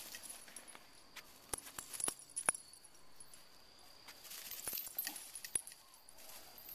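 Light metallic jingling with scattered sharp clicks, the jingling strongest about four to five seconds in.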